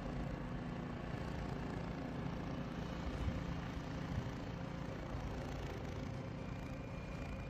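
Steady vehicle engine rumble with road noise and a few faint steady tones.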